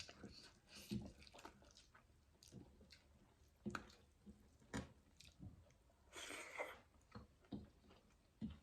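Quiet, close-miked eating sounds: intermittent chewing and lip smacks, a few seconds apart. A brief soft hiss comes about six seconds in.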